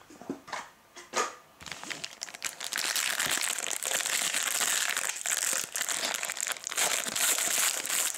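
Gold foil wrapper of a 2014 Panini Hot Rookies football card pack crinkling and crumpling in the hands. A few light knocks come first, then about two and a half seconds in a dense, continuous crackle.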